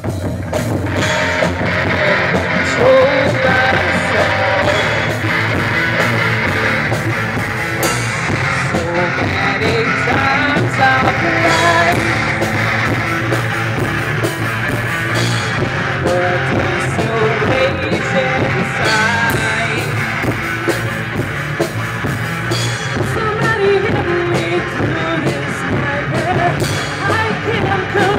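Live rock band playing a song: a singer on a microphone over electric guitar, bass guitar and drum kit.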